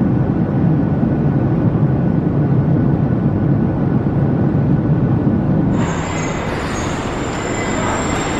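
Steady rumbling noise of a moving vehicle. About six seconds in the deep rumble drops away, replaced by a brighter hiss with a thin, steady high whine.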